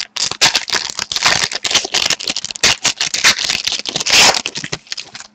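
Foil wrapper of a trading-card pack being torn open and crinkled by hand, a dense, close run of crackling that stops just before the end.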